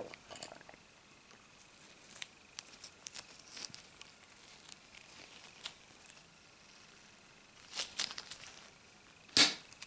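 Knipex lever-action mini bolt cutter cutting through a steel wood screw: latex-gloved hands rustle faintly and the tool clicks as the screw is set in the jaws, then a sharp snap near the end as the jaws shear the screw.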